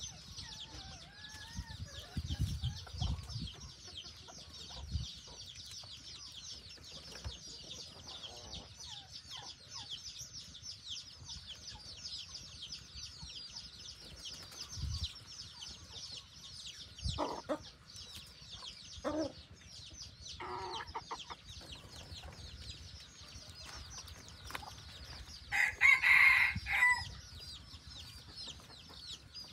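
Junglefowl decoy roosters clucking a few times, then one crowing loudly and briefly near the end. A steady, high, rapid chirring runs underneath.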